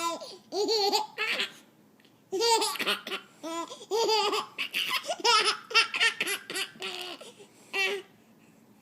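Six-month-old baby laughing in runs of short, high-pitched laughs, with a brief pause about two seconds in and stopping shortly before the end.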